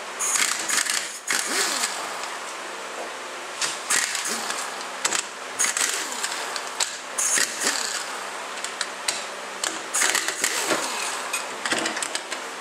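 Hand ratchet with a 13 mm socket clicking in repeated bursts as the bolts holding the transmission pump together are undone, with metallic clinks and rattles of the parts being handled.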